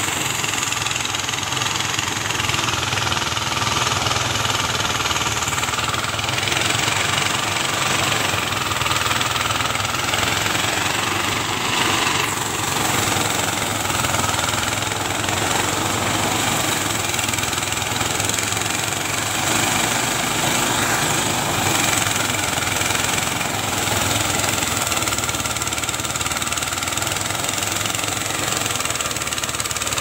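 Engine-driven rice thresher running steadily while bundles of rice stalks are fed into it.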